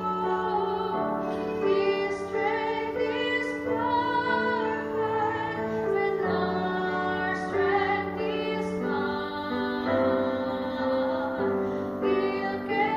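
A woman singing a song while accompanying herself on piano.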